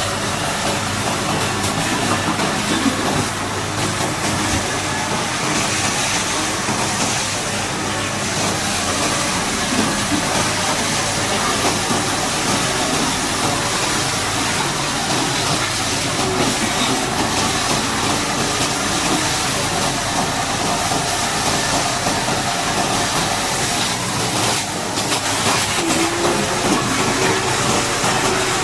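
High-pressure water spray hissing steadily while washing down a heavy-equipment bulldozer, with an engine running underneath.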